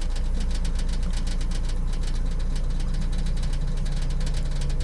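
Car engine and road noise heard from inside a moving vehicle: a steady low drone with no break.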